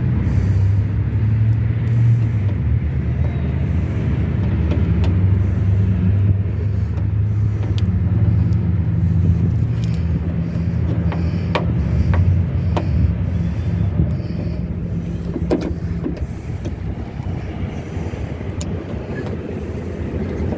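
Steady low drone of a running engine, with a few light clicks of small metal lock parts being fitted together by hand.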